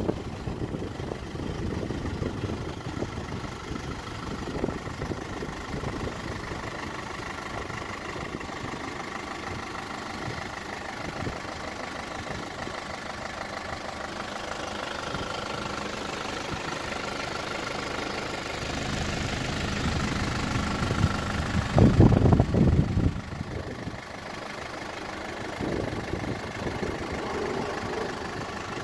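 1988 Isuzu Bighorn's 2.8-litre 4JB1-T four-cylinder direct-injection turbo-diesel idling steadily. A brief loud low rumble comes about three-quarters of the way through.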